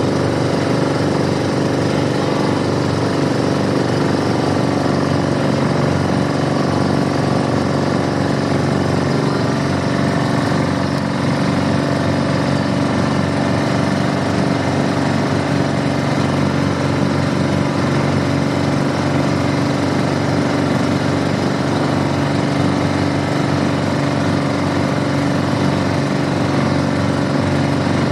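Small boat's engine running steadily, an even mechanical drone with no change in speed.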